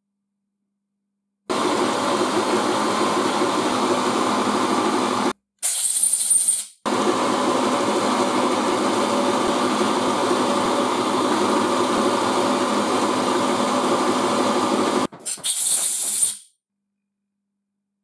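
Milling machine running steadily while a small bit drills a ring of holes into a brass dial ring, in two long stretches, each followed by a brief high hiss.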